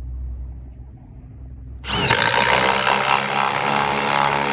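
Power drill running at speed for a few seconds. It starts suddenly about two seconds in, after a low hum.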